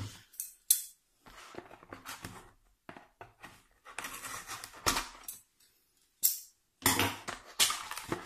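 Scissors slitting the packing tape on a cardboard mailing box, with scraping and rustling of the cardboard and a couple of sharp clicks.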